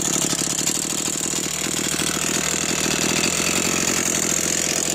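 Echo CS-490 two-stroke chainsaw idling steadily, with a rattling noise from one side of the saw whose cause the owner does not know.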